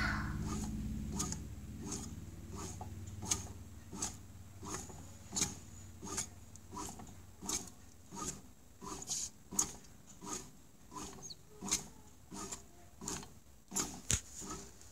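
Bread maker kneading soft, sticky hotteok dough: the dough ball slaps and thuds against the nonstick pan with each turn of the paddle, a regular beat of about three knocks every two seconds, over a low motor hum.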